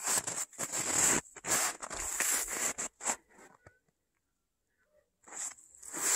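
Footsteps crunching in snow, about one step every half second. They stop for under two seconds past the middle, then start again near the end.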